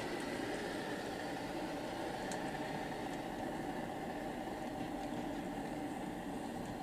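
HO scale model log train running past on the layout: a steady mechanical rumble with a few faint scattered ticks.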